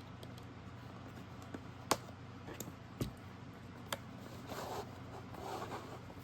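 Product packaging being handled and opened: three sharp clicks or taps about two, three and four seconds in, then rustling and scraping as the box is worked open, over a faint steady hum.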